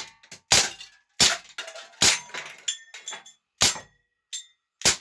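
ASG Dan Wesson .177 CO2 pellet revolver fired double-action five times in quick succession, each a sharp pop. Smaller metallic clinks with a brief ringing follow several shots as pellets strike tin cans and metal targets.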